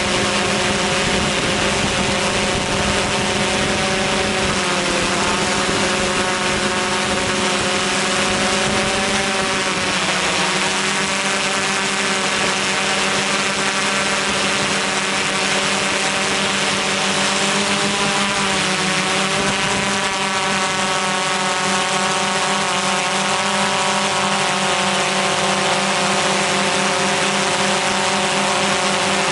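Multirotor drone's motors and propellers running steadily, heard from the drone itself, with several tones that drift up and down in pitch as it flies, over a hiss of wind and rotor wash.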